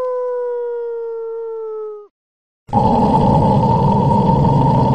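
A dog's long howl, slowly falling in pitch, ends about two seconds in. After a short pause, a louder, rough, continuous dog growl begins.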